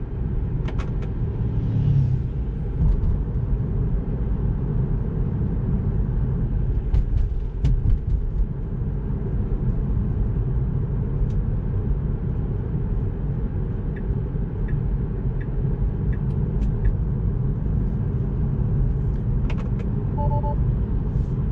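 Steady low road and tyre rumble inside a Tesla Model 3's cabin while driving, with a few faint clicks and a short electronic beep near the end.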